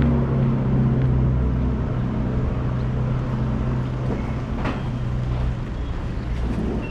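A motor vehicle's engine running close by, a low steady hum that fades away about five seconds in, over street noise with a single click about two-thirds of the way through.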